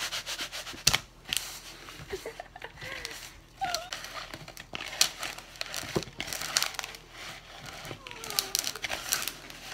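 Sliced apples being tossed by hand in a plastic mixing bowl: a busy run of small clicks and rustles as the slices rub against the plastic, with a sharp knock about a second in and another near six seconds.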